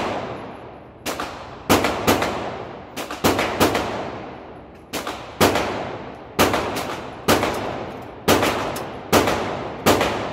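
AR pistol chambered in 7.62×39mm fired semi-automatic: a dozen or more sharp shots at an uneven pace, usually half a second to a second apart, each ringing out in the reverberation of an indoor range.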